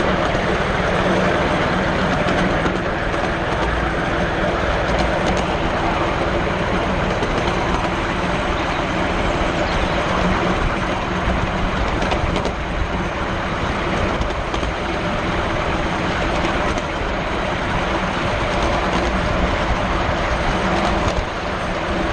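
7¼-inch gauge miniature railway train running along the track, heard from a wagon in the train: a steady rumble of the wheels on the rails.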